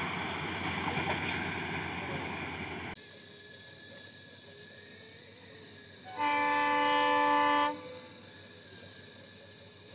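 Rumble of a passing train, cut off abruptly about three seconds in. Then, after a few quieter seconds, a WDP-4D diesel locomotive's air horn gives one blast of about a second and a half from the approaching express.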